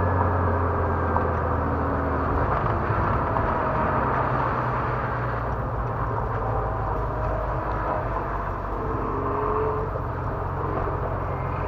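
Porsche 911's flat-six engine running steadily at low speed, heard from inside the cabin, with road and tyre noise.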